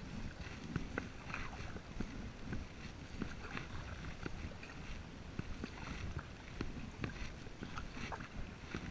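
Kayak paddling: a double-bladed paddle dips into calm water on alternate sides, with irregular small splashes and drips. A low rumble runs underneath.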